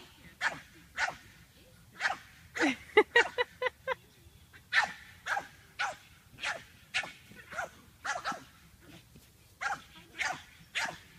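Pug puppy barking in short, sharp barks, about two a second, with a quick run of barks about three seconds in.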